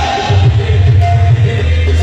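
Loud qawwali music with singing over pulsing low drum notes and held instrumental tones.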